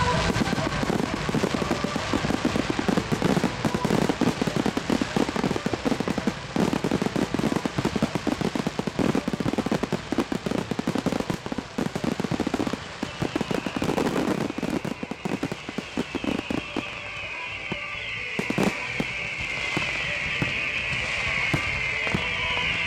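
Fireworks display barrage: a dense run of rapid firework bangs and crackles from aerial shells and multi-shot cakes. After about two-thirds of the way through, the bangs thin out and a high, hissing crackle builds and grows louder.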